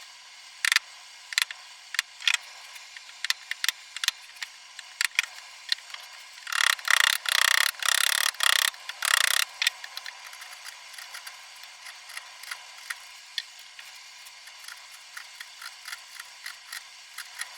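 Hand work on a wooden piece: scattered sharp scraping strokes and light knocks over a faint rubbing. About a third of the way in, a quick run of about a dozen louder rasping strokes lasts three seconds, like sanding or filing wood.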